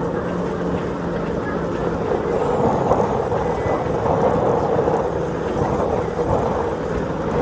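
Donzi ZR powerboat running under way: a steady engine drone mixed with a broad rushing noise, swelling slightly in the middle.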